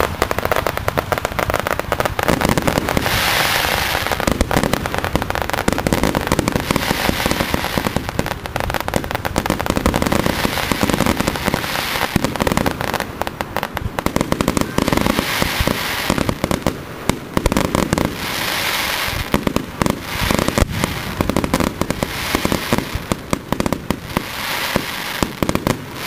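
Aerial fireworks display: a dense, continuous barrage of shells bursting, with rapid sharp pops and swells of crackling every few seconds.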